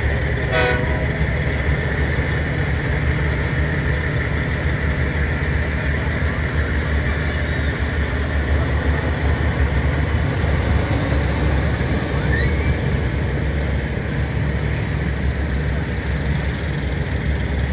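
Heavy diesel truck engines running with a steady low rumble.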